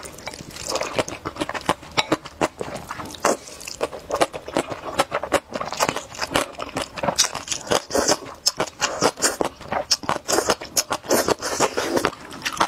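Close-miked slurping and chewing of saucy snail rice noodles (luosifen): a dense, irregular run of wet sucking smacks and mouth clicks.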